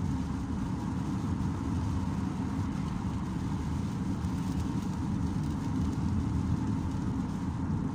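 Steady low road and engine drone inside the cabin of a car driving at freeway speed.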